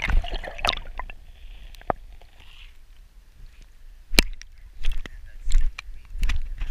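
Water sloshing around a wading angler and a just-caught brook trout, with scattered sharp clicks and knocks and low rubbing from handling a body-worn camera.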